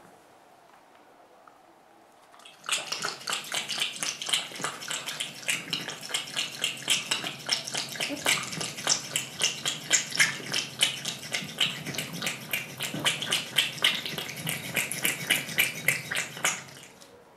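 A recorded sound effect from a sound CD, played back: a dense run of rapid clicks and clatter with a few louder beats each second. It starts about two and a half seconds in and stops suddenly shortly before the end.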